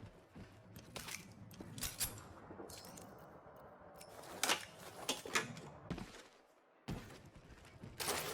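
Video game sound effects: a series of sharp knocks and clicks, a brief drop to near quiet about six seconds in, then a louder hit near the end.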